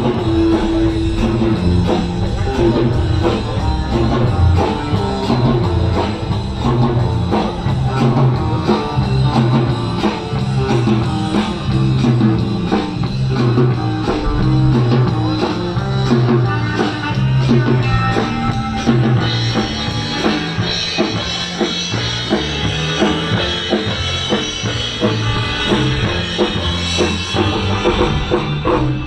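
A live surf band playing rock music, with drum kit and electric guitar keeping a steady beat.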